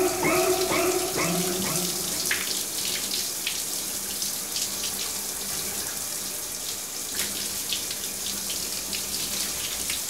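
Water running steadily, an even hiss with scattered small drips and splashes over a faint low hum. A pitched sound repeating about three times a second fades out in the first two seconds.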